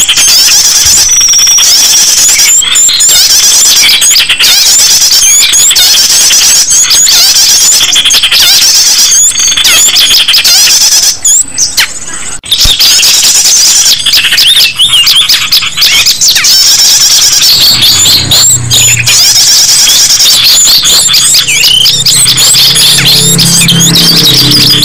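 Loud, dense chorus of small songbirds chirping and twittering, many high, quick calls overlapping without pause. In roughly the last quarter a low steady hum joins underneath.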